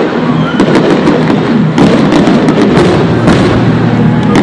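Fireworks display: several sharp bangs of bursting shells, roughly one a second, over loud continuous music.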